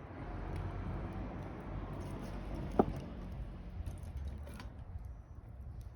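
Wood fire burning in a fire pit with a steady rustling hiss and one sharp crack about three seconds in.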